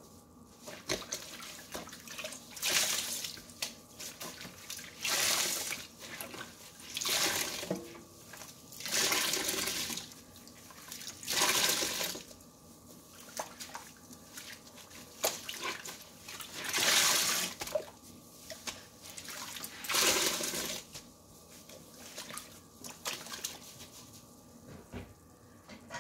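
Kitchen sponges squeezed and pressed in soapy water in a stainless steel sink: wet squishing and sloshing in repeated swells about every two seconds, giving way to softer, smaller sounds after about twenty seconds.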